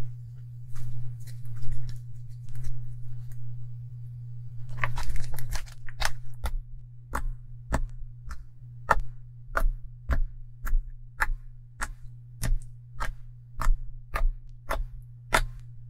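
Fingers poking into soft homemade slime made from Pond's powder and sugar: each poke gives a sharp pop, about two a second, in an even run for the last ten seconds. Before that, quieter irregular crackling as the slime is stretched and squeezed in the hands. A steady low hum lies underneath.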